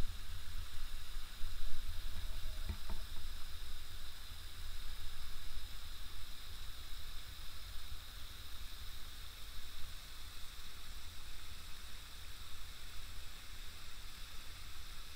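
Steady rushing of a waterfall with a low, unsteady rumble underneath, and one faint click a few seconds in.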